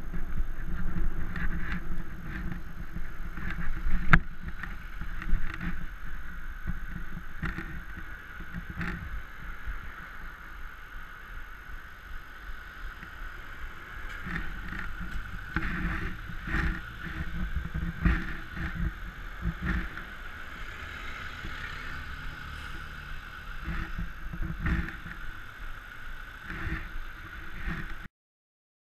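Muffled traffic and road noise picked up by an action camera's microphone on a bicycle: a steady low rumble of passing vehicles and a faint steady hum, with frequent short knocks and bumps. The sound cuts off suddenly near the end.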